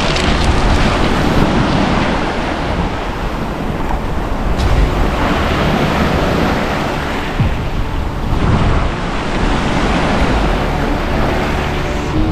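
Sea waves breaking and washing up the beach, with wind buffeting the microphone.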